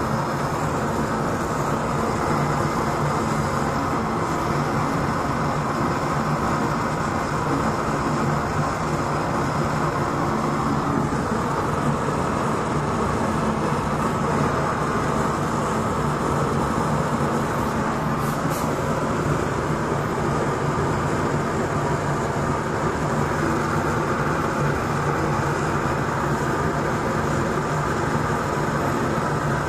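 Homemade waste-oil stove burning used engine oil with forced air: a steady blower-and-burner roar with a constant low hum underneath.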